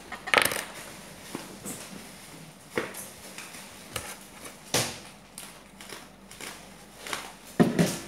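Plastic mailer bag crinkling and rustling as it is handled and torn open, with several sharp crackles at irregular intervals, the loudest near the end.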